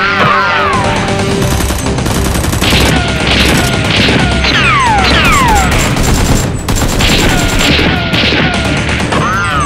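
Action background music mixed with dubbed rapid gunfire sound effects. Repeated falling whistling tones sound over the gunfire.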